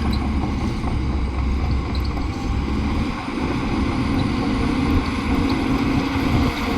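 Bulldozer's diesel engine running steadily with a continuous low drone.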